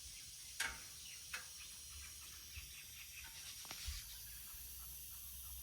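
Steady high hiss of refrigerant escaping from a Ford E150 van's leaking air-conditioning condenser, with a few sharp clicks over it, the loudest about half a second in.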